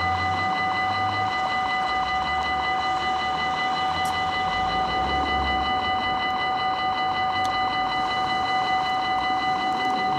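Electronic warning bell of a Belgian railway level crossing ringing steadily with a rapid, even ringing pulse, sounding as the barriers are about to lower. A low rumble underneath fades out about halfway through.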